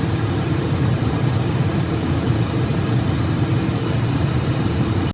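Steady rumbling noise of a jet airliner's engines, cut off abruptly at the end.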